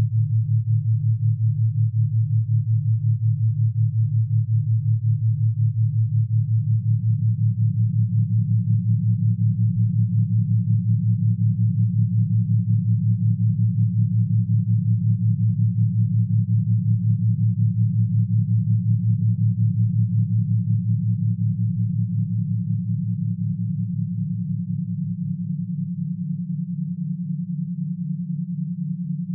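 Low electronic sine tones of a meditation frequency track, pulsing rapidly and evenly. A second, slightly higher tone comes in about six seconds in, and near the end the lower tone fades and the sound gets a little quieter.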